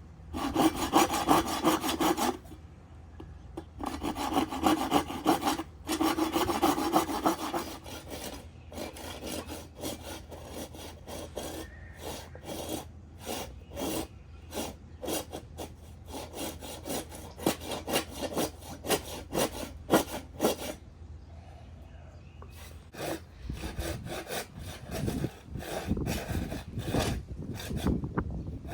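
Hand saw cutting through a wooden board by hand, a hard cut: two runs of rapid back-and-forth strokes, then slower separate strokes, duller near the end as the cut goes through.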